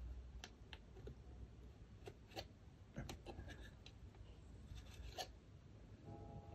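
Single-edged razor blade scraping modelling putty flush over a plastic model part: faint, irregular scrapes and light ticks of the blade on the plastic.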